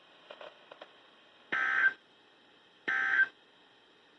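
EAS/SAME digital data bursts on NOAA Weather Radio, the end-of-message signal closing a severe thunderstorm warning. These are short, harsh warbling bursts, two of them about 1.4 s apart, with a third starting at the very end.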